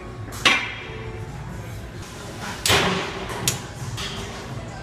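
Loaded barbell being set down, its iron weight plates clanking: three sharp knocks, the loudest about two and a half seconds in with a short ring after it.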